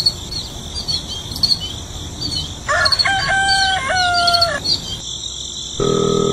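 Farmyard ambience: small birds chirping over a steady insect trill, with a rooster crowing for about two seconds in the middle. A steady droning hum starts near the end.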